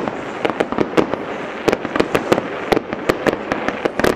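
Fireworks display: a fast, irregular string of sharp cracks and pops from bursting aerial shells, several a second, over a steady hiss.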